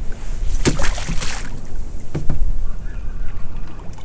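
Wind rumbling on the microphone aboard a small open boat, with water moving against the hull and a few short knocks or splashes, about a second in and again just after two seconds.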